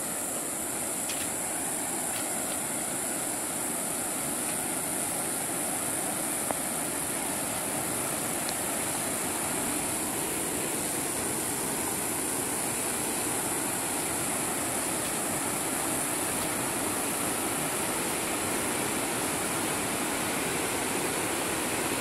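Sarapiquí River rapids rushing below, a steady wash of water noise, with a steady high-pitched hiss above it.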